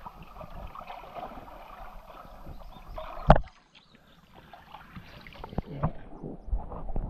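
River water sloshing and splashing around people wading in the shallows. A single sharp knock about three seconds in, then a brief hush before the splashing returns.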